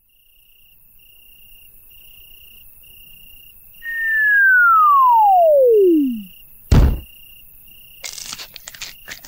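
Cartoon sound effects: crickets chirping in a steady pulse, then a whistle sliding down in pitch for about two and a half seconds, ending in a heavy thud, the classic sign of something falling and landing. A few rustles and clicks follow near the end.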